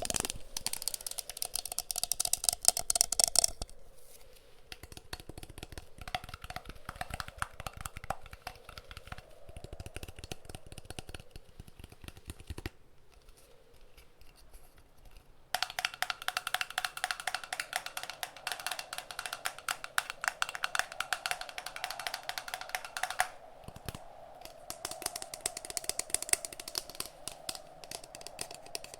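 Rapid fingertip tapping on hard objects, a fast stream of light clicks in several bursts: loud at first, softer for a while, a brief lull, then loud again and softer near the end. A steady background wind sound runs underneath.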